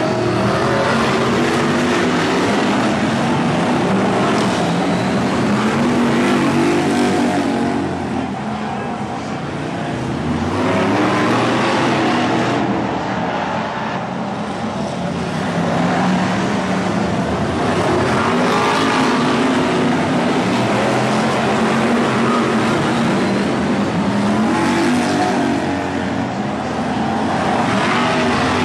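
BriSCA F1 stock cars' V8 engines racing together, their notes rising again and again as they accelerate, the sound of the pack swelling and fading every few seconds as the cars come round and past.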